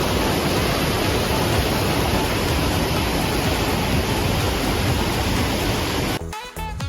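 Steady rushing roar of a waterfall and mountain stream pouring over rocks. It cuts off abruptly about six seconds in, replaced by background music with a beat.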